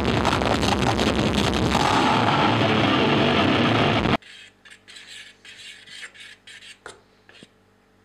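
Loud concert music and crowd noise, cut off suddenly about four seconds in. Then come soft, intermittent rasping and scraping sounds, flour being shaken from a bag into a stainless-steel pot of water, with a couple of light clicks.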